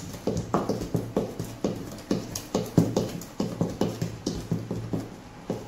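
Wooden spatula beating cake batter by hand in a mixing bowl: a steady run of knocks and scrapes, about four strokes a second.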